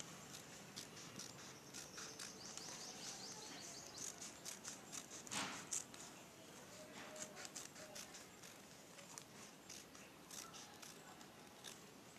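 Scissors snipping through colored paper folded into four layers, cutting out a circle: a run of faint, irregular cuts, one firmer snip about five seconds in.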